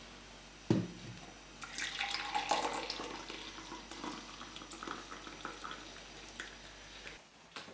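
Coffee poured from a glass carafe into a ceramic mug: a splashing stream that starts about two seconds in and stops shortly before the end. A single thump comes about a second in, before the pour begins.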